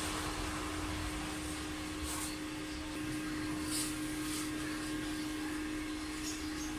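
Steady electrical hum of a stick (arc) welding machine, with a few short crackles as the welder strikes brief tack welds on the galvanised-iron cart frame.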